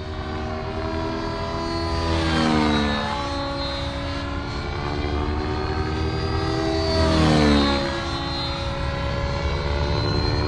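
Nitro RC helicopter's OS 55 AG two-stroke glow engine with a tuned pipe, and its rotor, running hard while flown in fast hurricane circuits to load and warm the engine. It gets louder and drops in pitch as it sweeps past, about two and a half seconds in and again about seven seconds in.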